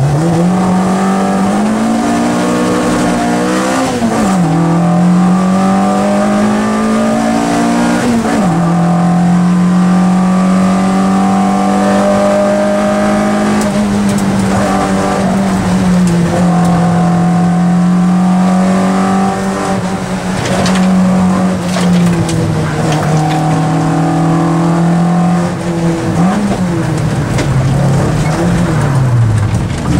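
Peugeot 205 rally car's engine heard from inside the cabin, launching from the start line and pulling hard up the gears: the pitch climbs and drops at upshifts about four and eight seconds in, then holds high revs, with brief dips and a deep drop and climb back near the end as the driver lifts and changes down.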